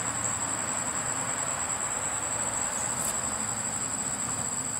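Steady high-pitched drone of insects, with a low steady hum underneath.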